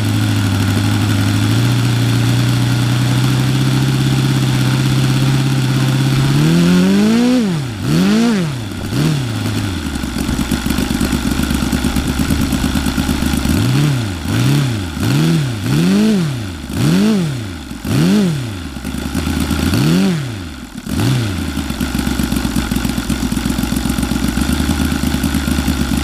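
Saito FA-90R3 four-stroke glow model engine running with its propeller on E85 pump fuel with 20% synthetic oil and no nitro. It holds a steady speed, then is blipped up and down a few times, drops to idle about ten seconds in, is revved up and down again about once a second for several seconds, and settles back to a steady idle, an idle whose mixture the owner says needs leaning.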